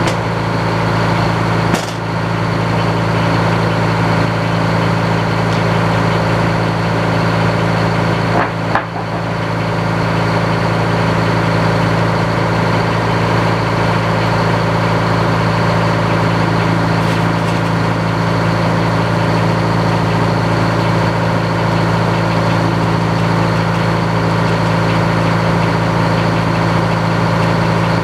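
Engine powering an old sawmill, running steadily, with two brief dips in level, once near the start and once about a third of the way through.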